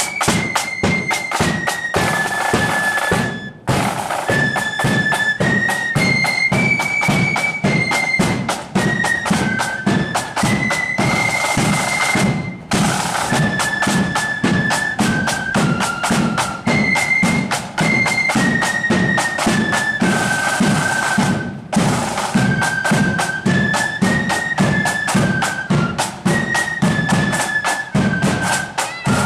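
Marching flute band playing a tune: flutes carry a high stepping melody over fast snare drumming, bass drum and cymbal, with three very short breaks in the music.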